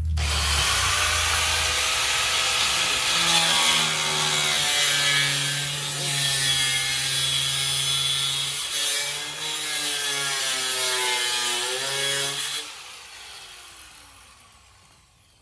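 Handheld cutoff wheel grinding through the steel rear body panel of a Pontiac Firebird, its pitch sagging and recovering as the wheel bites into the metal. Near the end the tool is let off and winds down.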